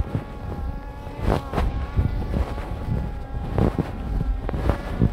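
Quadcopter drone's propellers buzzing steadily in a pitched whine, under low wind rumble on the microphone, with scattered short knocks.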